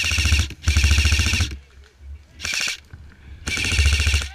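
Airsoft rifle firing on full auto in four bursts of rapid shots with a faint motor whine, the third burst short.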